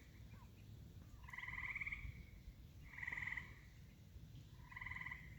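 Frogs calling at a pond: three faint trilled calls, each under a second long, coming a second or two apart.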